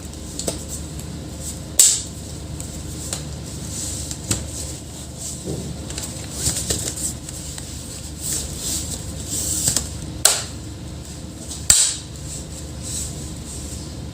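Laptop reassembly by hand: a few sharp clicks and knocks from the bottom cover and parts being fitted, the loudest two near the end, with lighter scraping and handling noises between them.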